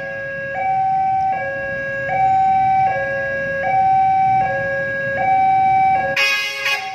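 Level-crossing warning alarm sounding its alternating two-tone low–high signal, each tone held just under a second, warning that a train is approaching. About six seconds in a short, loud blast cuts across it.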